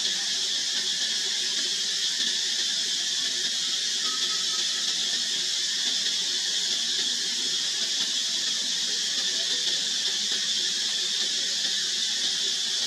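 Steady high-pitched hiss that holds at one level without change, with nothing else standing out.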